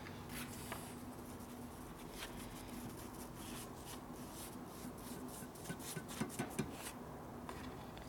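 Faint rubbing and light ticks of hands working a brush-in-cap can of gasket sealant and a gasket on cardboard, with a few sharper ticks about three-quarters through, over a low steady hum.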